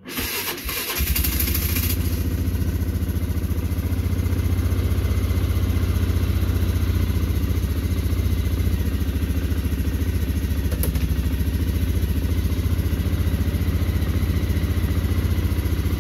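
2004 Polaris Sportsman 500 ATV's single-cylinder four-stroke engine, bored out to 600, cold-started on full choke: it cranks briefly and catches about a second in, then runs steadily on choke.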